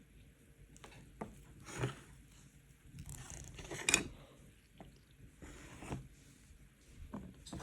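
Faint handling noises: a few light clicks and knocks with short scraping rustles, the loudest about four seconds in.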